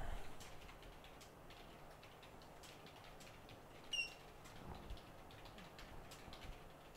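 A short, high electronic beep about four seconds in, from the JC Pro1000S programmer working on its P7 NAND module, over faint light clicks and ticks of handling.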